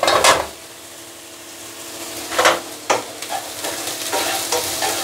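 Diced zucchini tipped into a hot pan of leeks and carrots in oil, sizzling loudly as it lands. Then it fries with a steady sizzle while a spatula stirs it, with a few sharper scrapes against the pan from about two and a half seconds in.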